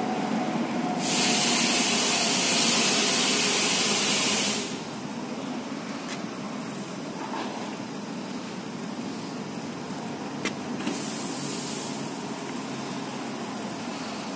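A loud, steady hiss starts about a second in and cuts off sharply after about three and a half seconds. A steady low background hum follows, with a couple of faint clicks and a second, shorter and fainter hiss later on.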